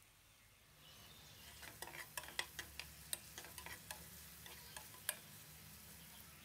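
Spatula stirring onions, ginger garlic paste and whole spices in a non-stick pot: a quiet frying sizzle with a run of sharp clicks and scrapes as the spatula knocks the pan, stopping about a second before the end.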